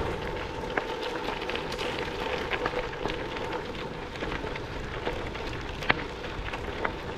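Gravel bike tyres rolling over a loose gravel track: a steady crackle with scattered sharp ticks of small stones, under a faint steady hum.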